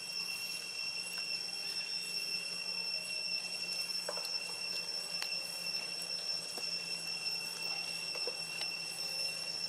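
Steady high-pitched whine held on two tones, with a faint low hum beneath and a few faint clicks.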